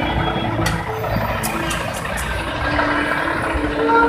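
Street traffic and vehicle engine rumble, with a few sharp clicks about a second in and a steady tone joining in the second half.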